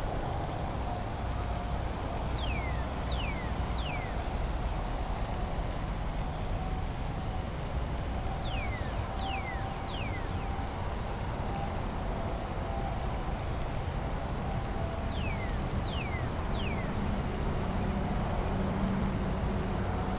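Steady low outdoor rumble with a bird singing over it: three quick falling whistles, repeated three times about six seconds apart.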